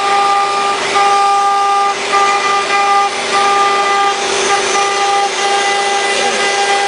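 CNC engraving machine running: a steady high whine with a hiss of cutting, and higher motor tones that cut in and out every second or so as the axes move.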